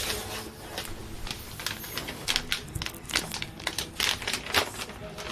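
Packaging handled and opened by hand: irregular clicks, taps and crinkles.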